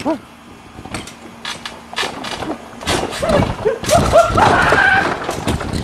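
A run of light knocks and clatters, with a voice making wordless cries and strained noises from about halfway through.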